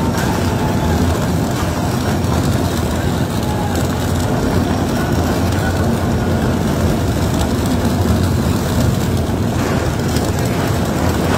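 Steady loud rumble of heavy machinery at the tunnel face, with the hiss of high-pressure water jets spraying the rock.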